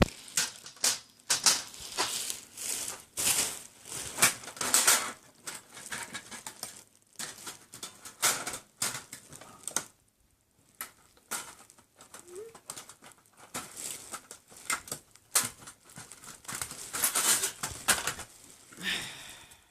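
Plastic and metal parts of an Xbox 360 being handled and fitted back together: irregular clicks, scrapes and rustling, with a brief pause a little past the middle.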